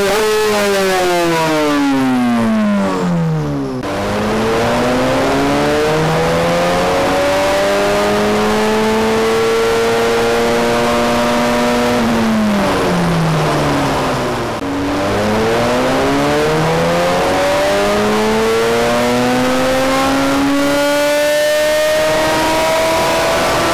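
2017 Kawasaki ZX-6R 636's inline-four engine running on a chassis dynamometer. The revs fall away at first, then climb steadily for about eight seconds, drop back for a few seconds, and climb again.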